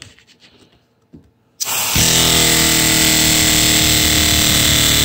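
Lego pneumatic V8 engine with a flat-plane crank, fed compressed air at about 80 PSI. After about a second and a half of quiet, air starts hissing and the engine quickly comes up to a fast, steady run, with the hiss of air going on over it.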